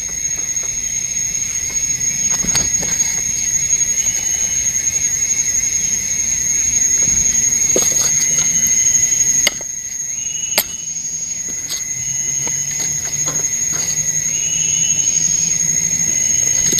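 Forest insects droning with a steady high-pitched whine, broken by a few sharp knocks from work at the camp.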